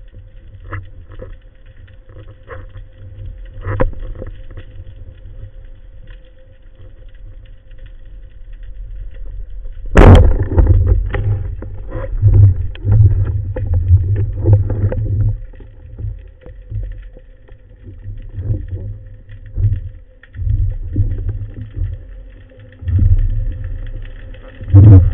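Underwater sound picked up by a spearfisher's camera: low rumbling and scattered knocks from water and handling over a steady faint hum. About ten seconds in there is one sharp crack, followed by several seconds of heavy rumbling, and another loud knock comes near the end.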